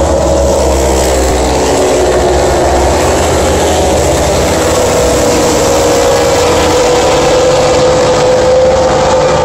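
A large pack of racing motorcycles passing at speed. Many engine notes are layered into one loud, continuous, steady engine noise.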